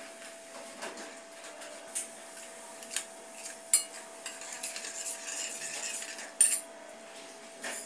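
Spoons clinking against a stainless steel bowl, then a metal spoon stirring a watery tamarind and spice mix in it, with a few sharp clinks along the way.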